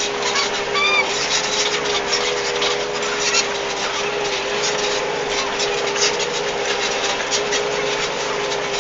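Case IH Puma CVX 160 tractor engine running steadily under ploughing load: a constant drone with irregular clatter over it.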